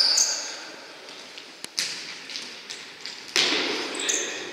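Futsal ball being kicked and bouncing on a sports-hall floor: a few sharp thuds ringing in the hall, the loudest about three seconds in, with short high squeaks of players' shoes.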